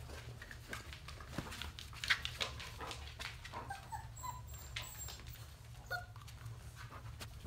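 Labrador Retriever puppies giving a few short, high whimpers about halfway through, with scattered light clicks and scuffles as they scamper on a tile floor.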